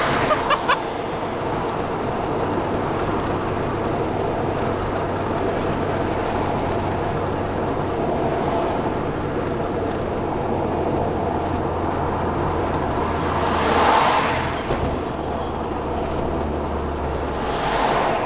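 Car cabin noise while driving: steady tyre and road rumble with a low engine drone. Two swells of rushing noise rise and fade, about fourteen seconds in and again near the end.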